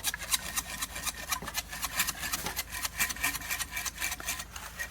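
A bare hacksaw blade, used by hand without its frame, sawing through a pipe in quick, even back-and-forth rasping strokes.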